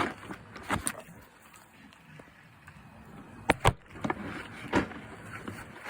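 Items being handled in a toolbox: a few sharp knocks and clicks, two close together about three and a half seconds in, between quieter handling noise.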